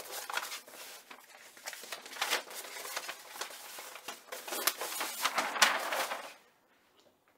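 Large rolled sheets of blueprint paper rustling as they are unrolled and leafed through by hand, with many sharp crackles; it stops about six seconds in.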